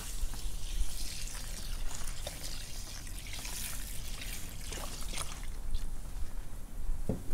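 Liquid in a kazan bubbling and dripping, with scattered small pops over a low steady rumble.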